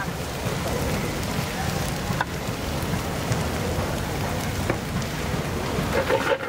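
Pad thai noodles and bean sprouts sizzling steadily in a hot wok over a gas burner, with a couple of sharp clicks.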